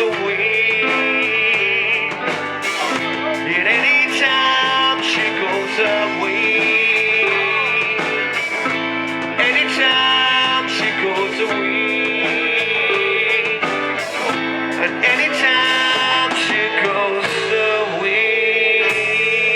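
Live band music led by guitar, playing continuously, with held high notes that waver in pitch.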